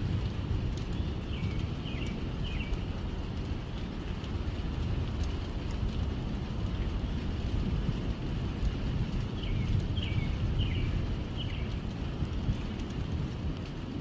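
Steady rain with a low rumble of thunder, and a bird calling in short falling chirps: three about a second in, four more around ten seconds in.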